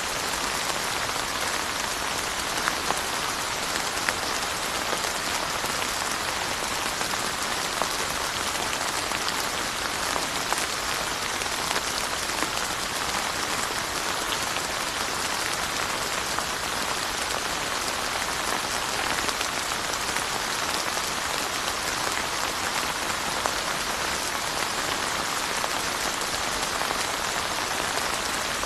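Steady rain falling, a continuous even hiss with scattered individual drops ticking on surfaces.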